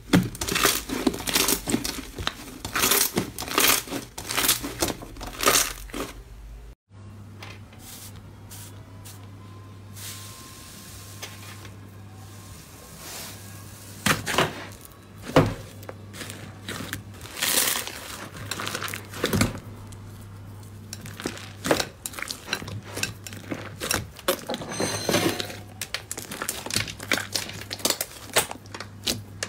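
Slime being squeezed, kneaded and poked by hand, giving rapid clicks and pops. The clicks come densely at first, break off about seven seconds in, then return sparser over a steady low hum and thicken again midway.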